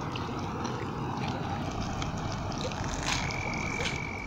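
Steady outdoor background noise with a few faint clicks. About three seconds in, a single high, steady call begins and holds for about a second and a half.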